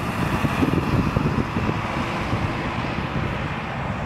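Jet engines of a twin-engine airliner at take-off power, heard from behind as it rolls away down the runway: a steady rumbling noise whose higher hiss slowly fades.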